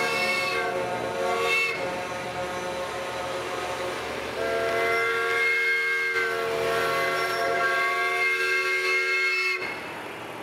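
Semi-truck air horns blowing a chord of several tones. The first blast stops about a second and a half in, and a longer blast starts about four and a half seconds in, breaks briefly in the middle and cuts off suddenly near the end. Underneath is the noise of heavy trucks driving past.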